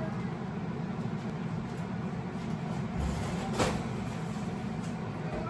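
A steady low hum, with a single sharp click or knock about three and a half seconds in.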